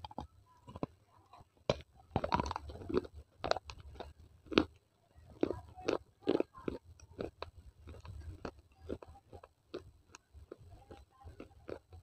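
A tiny baked-clay pot being bitten and chewed up close to a clip-on microphone: sharp cracks and gritty crunches, coming thick and fast in the first half, then thinning out to scattered crunches as the clay is ground down.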